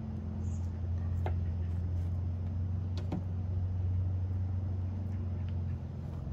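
Steady low mechanical hum, like a motor or engine running, with two or three faint short clicks about one and three seconds in.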